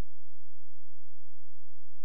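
Near silence: an empty soundtrack with no audible sound.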